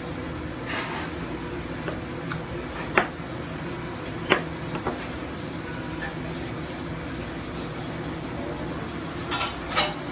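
Sharp knocks of a chef's knife on a cutting board, the two loudest about three and four seconds in, over a steady kitchen hum. A few quick clatters come near the end.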